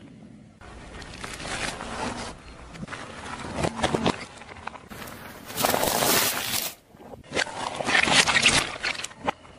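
A car tyre rolling over and crushing soft and crunchy objects on asphalt: a series of short squashing, crackling and scraping sounds, cut one after another. The loudest stretches come about halfway through and near the end.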